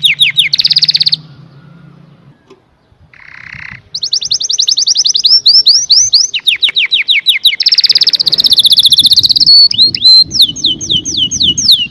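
Domestic canary singing: fast trills of repeated falling whistled notes, many a second, broken by a pause of about three seconds near the start. A dense, high, rolling trill comes in the second half.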